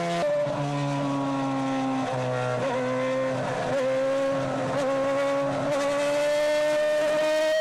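Sauber C30 Formula 1 car's 2.4-litre Ferrari V8 running at high revs. Its pitch drops just after the start and sags for a few seconds, then climbs steadily as the car accelerates.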